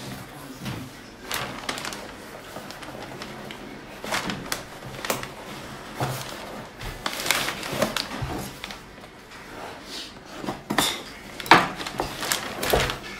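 A present being unwrapped by hand: paper rustling and a cardboard box being handled, with irregular crinkles and light knocks.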